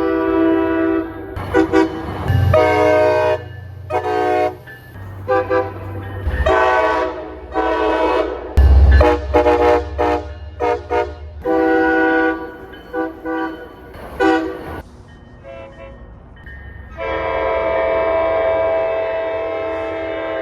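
MBTA train horns sounding a chord of several notes, in a string of short and longer blasts with a deep locomotive rumble under some of them. Near the end comes one long held blast.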